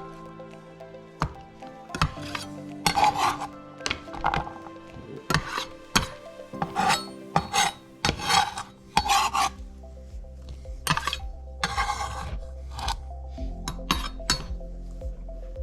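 Kitchen utensils scraping and rubbing during food preparation: a run of short, irregular scraping strokes, with one longer stroke about three-quarters of the way through. Background music plays throughout.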